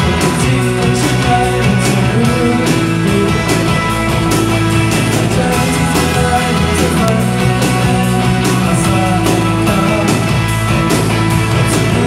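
A rock band playing live: electric guitar, bass guitar, keyboards and drums over a steady beat.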